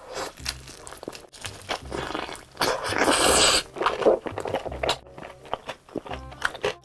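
Close-miked biting and chewing of sweet sauce-glazed fried chicken: crisp crunches of the fried coating with wet chewing, the loudest burst of crunching about three seconds in.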